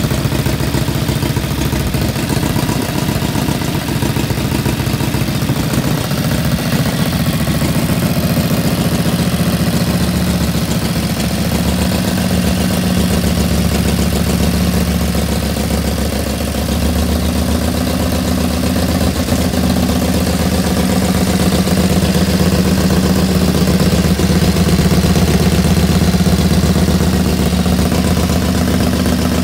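Freshly built 1950 Harley-Davidson Panhead overhead-valve V-twin engine running at idle on its first test run. Its beat steadies partway through and grows a little louder in the second half.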